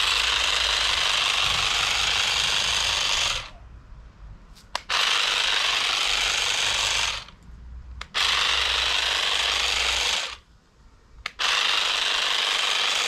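Electric grass shears running in four bursts of two to three seconds each with short pauses between, a sharp click as it starts up again.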